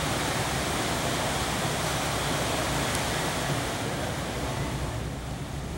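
Steady rushing background noise of a large indoor sports hall, easing slightly near the end.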